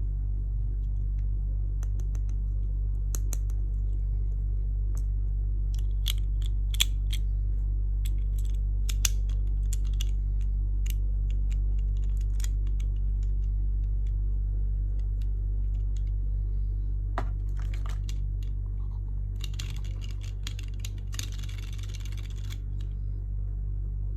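Light clicks and taps from handling small plastic parts and packaging, with a few seconds of rustling about twenty seconds in, over a steady low hum.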